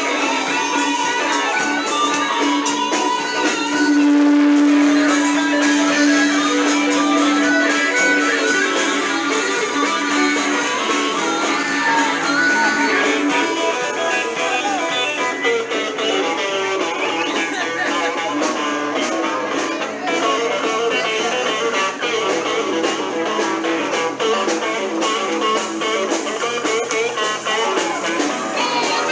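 Blues-rock band playing, led by electric guitar, with a long held note in the first several seconds.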